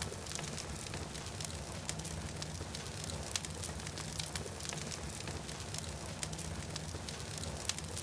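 Wood fire crackling in a fireplace: a steady hiss with scattered, irregular sharp pops.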